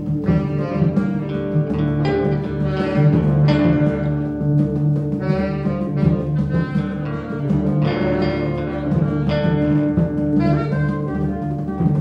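Improvised experimental jazz. A reed instrument plays wavering held notes, starting and stopping every second or two, over steady low sustained tones from the band's keyboard and electric guitar.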